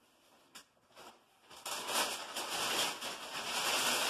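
White packing paper crinkling and rustling as it is pulled out of a cardboard shipping box, starting about a second and a half in after a quiet moment with a light tap.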